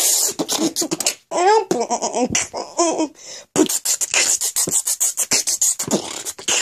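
Vocal beatboxing: rapid mouth clicks and hissing 'ts' sounds, with a few short sung vocal notes about two seconds in.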